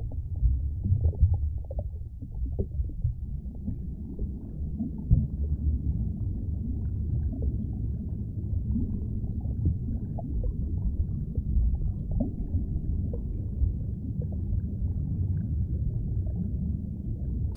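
A deep, muffled rumbling drone with uneven swells and faint crackles, all sitting in the low range with nothing bright above it: an ambient sound-design rumble.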